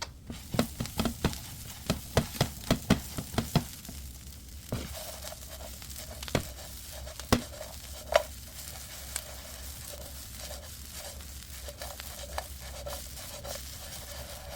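Food being stirred in a pan of hot oil. For the first few seconds a spoon knocks against the pan two or three times a second; after that the pan sizzles and crackles steadily, with a few more knocks and pops.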